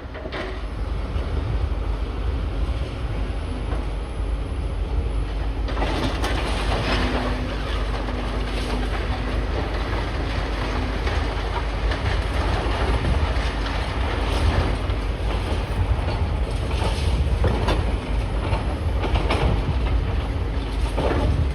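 Demolition machinery working rubble: a steady low engine rumble with irregular clanks and scrapes of debris and metal throughout.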